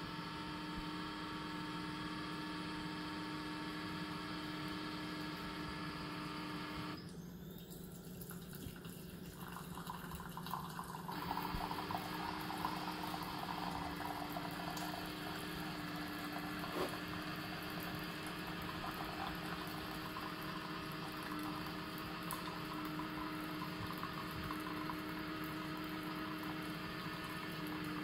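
Keurig K-Compact single-serve coffee maker running a brew cycle. It hums steadily, and the hum changes about seven seconds in. From about ten seconds in, a stream of water pours into the mug with a steady trickling splash over the hum.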